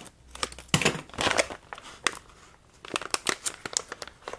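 Silvery plastic packaging bag crinkling and rustling as it is handled and pulled open, in two crackly bursts, about a second in and again around three seconds in.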